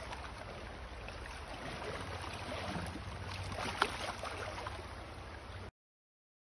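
Shallow river water running steadily around a wading angler, with small splashes and one sharp click about four seconds in as the trout is handled in the landing net. The sound cuts off abruptly near the end.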